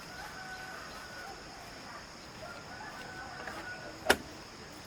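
Faint rooster crowing twice, each crow drawn out for about a second, over a steady high insect buzz. A single sharp knock comes near the end.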